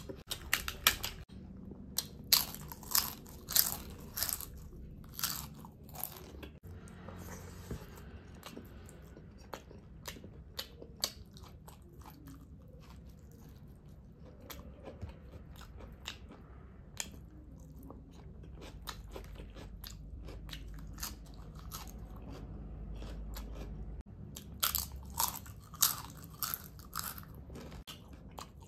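Close-miked mouth sounds of a person eating: chewing with sharp, crunchy bites. The bites come in dense runs in the first few seconds and again near the end, with sparser chewing between.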